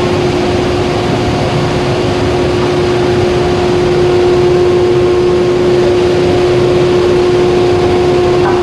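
Glass furnace equipment running steadily: a loud, even rushing noise with a constant mid-pitched hum, slightly louder from about four seconds in.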